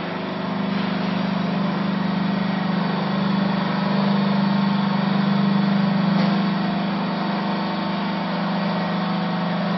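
Hydraulic power pack of a vertical used-clothes baler running with a steady hum while the ram rises and ejects the finished bale.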